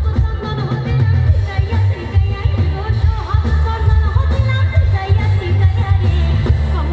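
Loud pop song with a singer over heavy, pulsing bass, played through a sound system.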